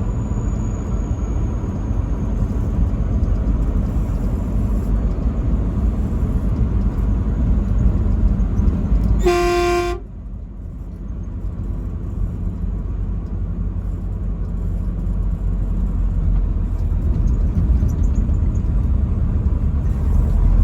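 Steady low road rumble of a moving vehicle, with a single truck horn blast, under a second long, about nine seconds in.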